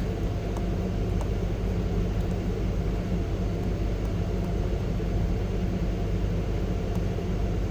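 Steady low mechanical hum with no distinct events.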